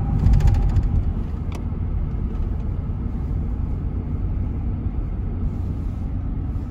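Steady low road rumble of a moving car, heard from inside the cabin, with one faint click about a second and a half in.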